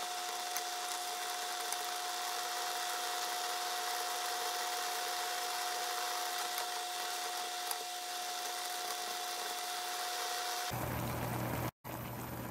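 Ramen noodles simmering in a small pot of water on an induction cooktop, played back sped up at six times speed: a steady high hiss with a steady whine running through it. It cuts off abruptly near the end.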